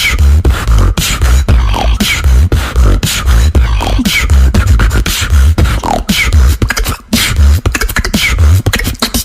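Beatboxing: a steady mouth-made groove of deep bass kicks and sharp snare-like clicks, with short falling pitch sweeps repeated through the pattern.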